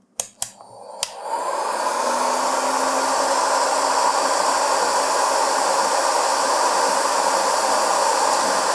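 A few clicks, then an INGCO HG200028 electric heat gun spins up and blows steadily on its third heat setting: a fan-driven rush of hot air that builds over about a second and then holds even.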